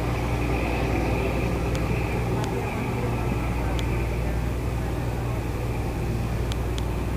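Glass-bottom tour boat's engine running steadily underway, a low even drone with water and wind noise over it. A few faint, short high ticks come through.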